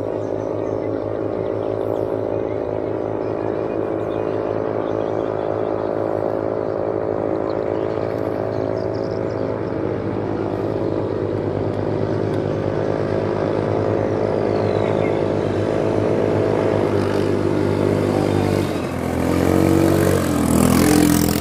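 Katinting motor canoe engines running steadily on the water. Near the end the pitch changes and the sound grows louder as a racing boat comes close.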